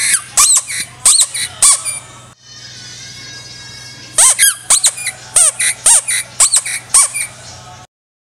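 Homemade plastic-bottle toy whistle giving short, shrill squeaky chirps that swoop up and down in pitch, in two quick runs of about six to eight chirps with a pause between them. The sound cuts off suddenly near the end.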